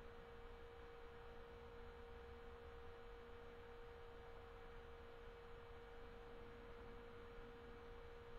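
Near silence: faint room tone with a steady single-pitched hum throughout.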